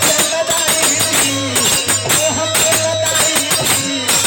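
Instrumental interlude of Bhojpuri folk devotional music: a rhythmic tambourine-like jingle beat over a steady drone, with a held melodic line from a keyboard or harmonium.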